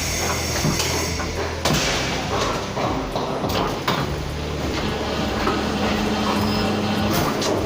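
Construction site noise: scattered knocks and bangs over a steady low machine hum, with a steady droning tone coming in partway through.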